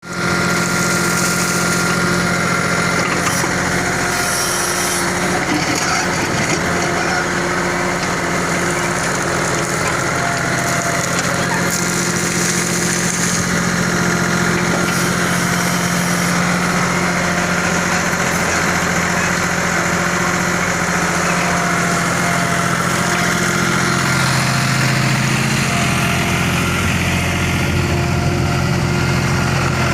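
Bull backhoe loader's diesel engine running steadily while the machine works, its low engine note growing stronger near the end.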